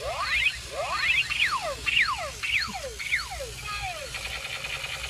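Electronic laser sound effects from a battery-powered toy robot: a run of rising sweeps, then several falling sweeps, about two a second. Near the end they change to a buzzing pulsed tone.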